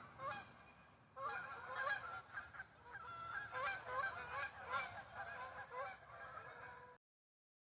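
A flock of geese honking, with many short calls overlapping. The honking cuts off suddenly near the end.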